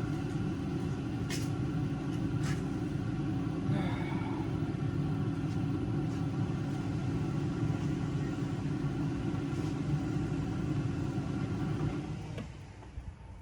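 2010 Volkswagen GTI Mk6's 2.0-litre turbocharged four-cylinder engine running steadily with a constant hum, then cutting out about twelve seconds in. This is the engine dying on its own, the fault of it shutting off after running.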